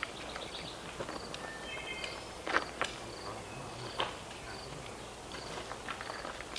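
Insects chirping in regular short high pulses, with a few faint sharp clicks and knocks.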